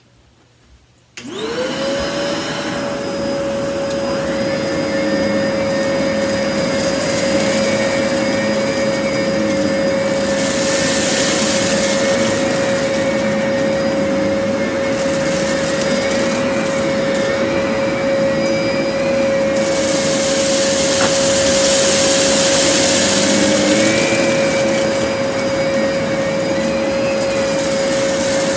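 Vacuum cleaner switched on about a second in, its motor spinning up to a steady high whine over a loud rush of air, as it vacuums up rice from a low-pile carpet. The rush of air swells at times.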